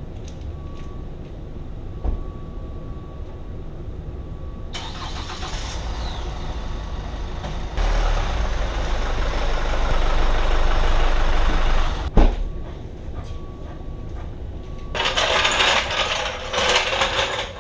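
Chevrolet Colorado ZR2's Duramax diesel engine running as the truck creeps forward, growing louder as it comes closer, then cutting off with a click about twelve seconds in. A burst of clattering follows near the end.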